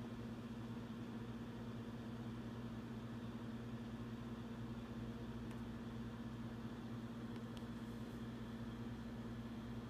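Steady low machine hum, unchanging in pitch and level.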